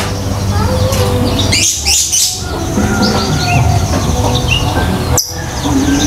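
Songbirds chirping and whistling in short, repeated calls, with a brief louder flurry about two seconds in and a sharp click near the end. A steady low hum runs underneath.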